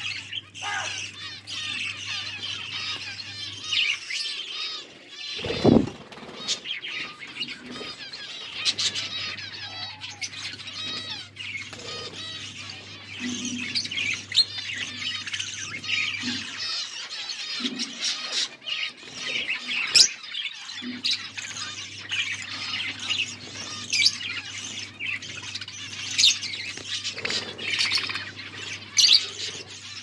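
A flock of budgerigars chattering and chirping without pause, a busy mix of warbles and short squawks. A low thump sounds once a little over five seconds in.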